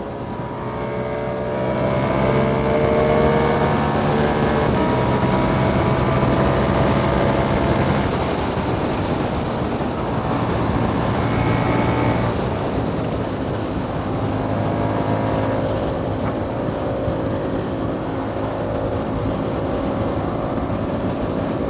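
KTM Duke 890R parallel-twin engine through a catless aftermarket exhaust, pulling hard with its pitch climbing and breaking at a few upshifts, then running steadier at speed, with wind noise.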